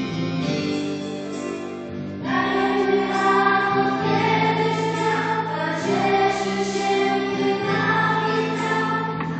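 A group of children singing a hymn-like song together, the voices growing louder about two seconds in.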